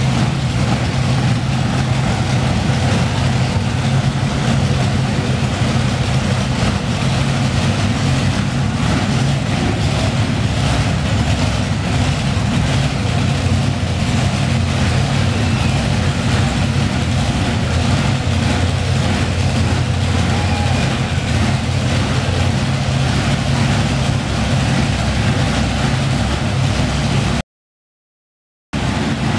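Monster truck engine running steadily with a deep, even note. The sound cuts out completely for about a second near the end.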